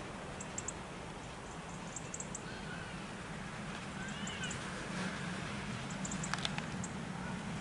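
Outdoor ambience: a low steady hum with scattered faint high chirps and two or three rising-and-falling calls.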